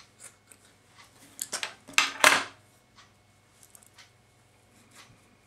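Small clicks and rustles of hands and tools at a fly-tying vise, with two loud, sharp clacks close together about two seconds in.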